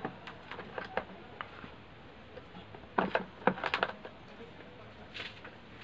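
Small sharp clicks and taps from hand tools and wire being handled on a circuit board during a repair, with a louder cluster of several clicks about three seconds in.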